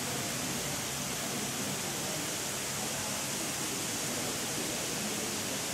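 Sprinkler installation spraying water into the air: a steady hiss of spray with droplets falling onto wet paving.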